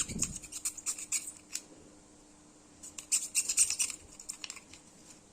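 Utility knife (cutter) trimming a small handmade pad, rapid scratchy cutting strokes in two bursts with a short pause between.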